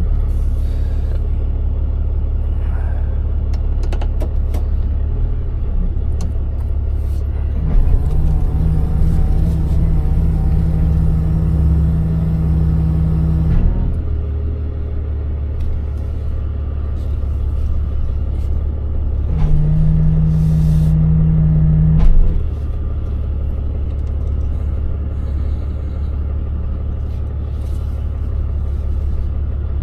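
Tow truck engine running steadily with a low rumble; a steady hum comes in twice over it, for about six seconds and then about three seconds.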